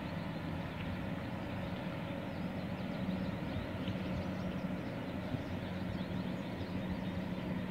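Engine of a passing tour boat running across the water: a steady low hum.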